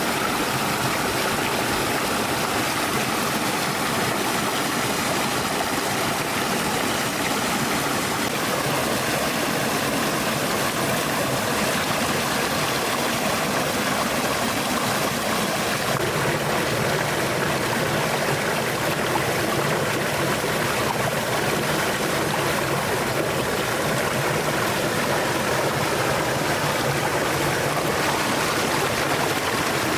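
Stream water flowing steadily, an even rush of water whose tone shifts slightly about halfway through.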